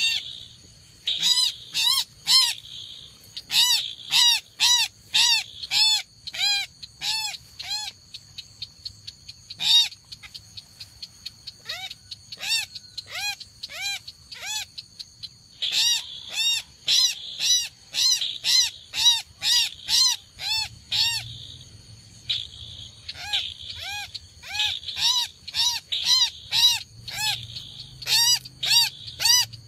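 Repeated call of a rail of the kind trapped as 'chàng nghịch' (red-eyed crake): short, arched, harsh notes about two to three a second, running in long series with a few short breaks.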